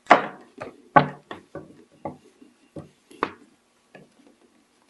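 Plastic housing of a Keurig K90 coffee maker knocking and clicking as hands grip and shift it on a countertop: about ten irregular knocks, the loudest about a second in and just after three seconds.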